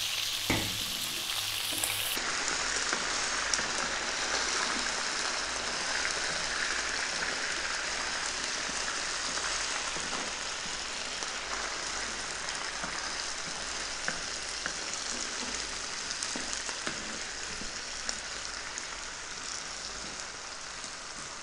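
Chicken pieces, chopped onion and garlic sizzling steadily in hot olive oil in a frying pan at slightly above medium heat, with occasional light clicks as a wooden spoon stirs them. The sizzle slowly grows quieter toward the end.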